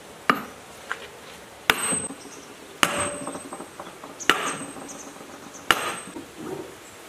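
Sledgehammer blows on the metal housing of a large electric motor: five heavy strikes about a second and a half apart, with a lighter knock after the first, each ringing and clattering briefly.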